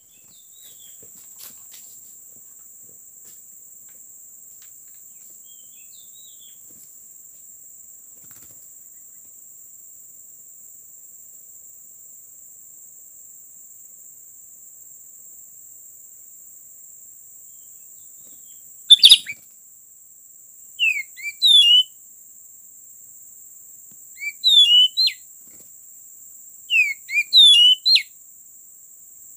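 Steady high-pitched insect drone, then from about two-thirds of the way in, loud clusters of short, quick up-and-down chirping calls of oriental magpie-robins (kacer). A sharp click comes with the first cluster.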